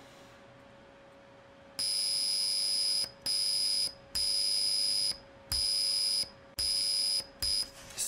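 Arduino-driven piezo buzzer sounding a steady high 5 kHz tone in six separate beeps, one for each press of the push button, starting about two seconds in. Each beep lasts from about a third of a second to a second. The sketch calls tone(buzzer, 5000) with a 10 ms delay while the button is held.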